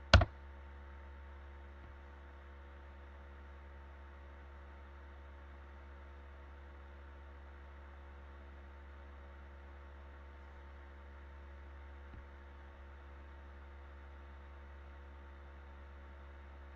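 A single sharp mouse click at the very start as the OK button is pressed, then a faint steady low electrical hum with a few faint steady tones above it, and one small click about twelve seconds in.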